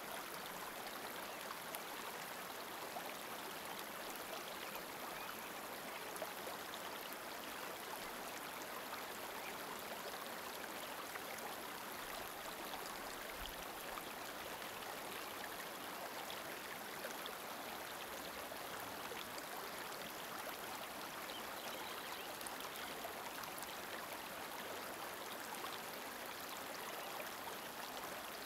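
Steady, even rushing of flowing water, like a stream, with no change over the whole stretch.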